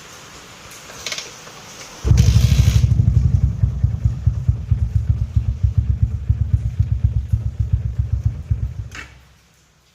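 TVS Apache RTR 180's single-cylinder four-stroke engine kick-started on a flat battery: it catches about two seconds in, runs with an even, loud beat for about seven seconds, then dies away.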